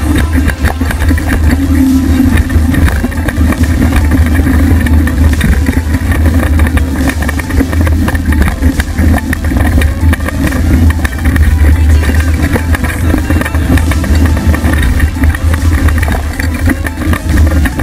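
Mountain bike rolling fast over a dirt singletrack, heard through a camera mounted on the bike: a heavy, steady rumble of wind and trail vibration, with frequent rattling clicks and knocks from the bike over bumps.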